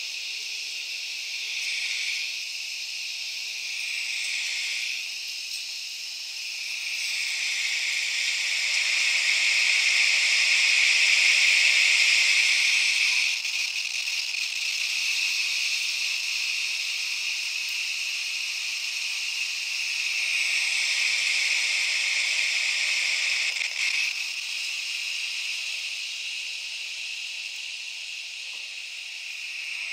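High, hissing, insect-like texture of processed forest sound from an electroactive-polymer sound installation. It swells to its loudest about ten seconds in, drops off suddenly, swells again around twenty seconds in, then fades.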